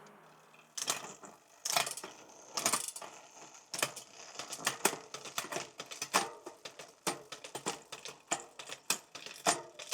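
Shimano 105 mechanical 11-speed drivetrain being test-shifted on a bike: an irregular run of sharp clicks and ticks as the shifters index and the chain moves across the cassette. The shifting is working properly.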